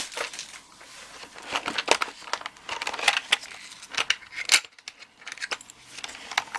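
Small metal lock parts being handled and rummaged for: a scatter of light clicks and rattles with some rustling.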